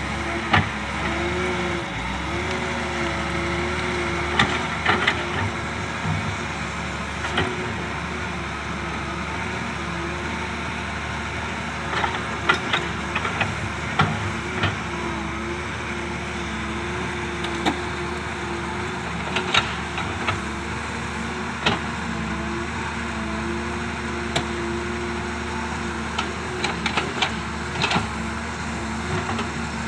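Doosan DX excavator's diesel engine running steadily under load, its pitch wavering slightly, with scattered sharp clanks and knocks as it pushes soil.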